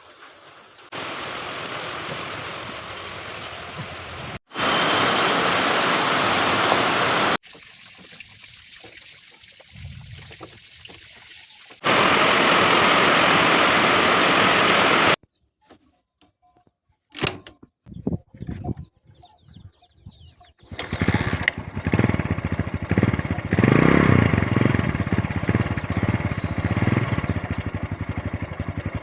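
Several separate spells of steady hiss-like noise, then, from about two-thirds of the way in, a Kawasaki Boxer's small single-cylinder engine running with rapid, even firing pulses.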